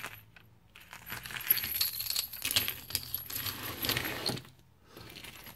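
Metal keychain hardware (split rings, chains and small charms on resin pendants) jingling and clinking as the keychains are picked up and moved by hand, with a run of quick clicks that stops about four and a half seconds in.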